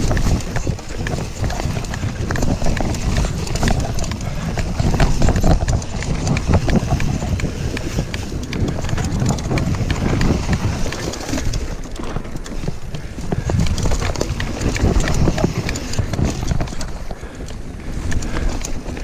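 YT Jeffsy full-suspension mountain bike ridden fast over woodland dirt singletrack: tyres rumbling on the ground with a constant irregular rattle and knocking of the bike over roots and bumps.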